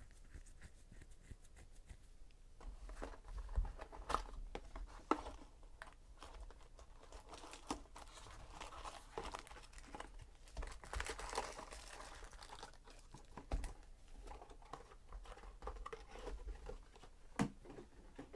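Foil trading-card packs crinkling and rustling as they are lifted out of an opened cardboard hobby box and stacked, with scattered light taps.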